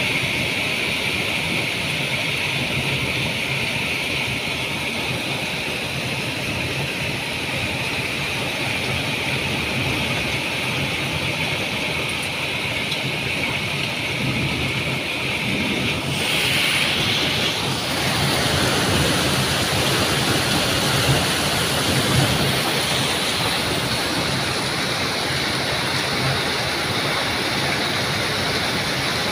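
Heavy rainstorm with hail pouring down in a steady rushing noise, with storm water running through the flooded street.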